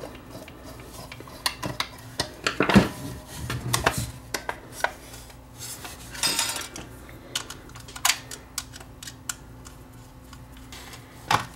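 Scattered clicks, knocks and light clatter of a vintage Sanyo TA-395 walkie-talkie's case being handled and its battery cover worked open, with a longer scraping rustle about six seconds in.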